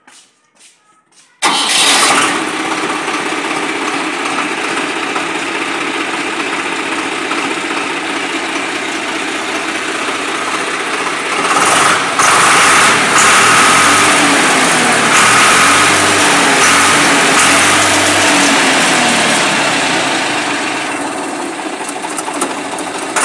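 A Swaraj 735 tractor's diesel engine starts suddenly about a second and a half in, then runs on at idle, a little louder from about halfway through.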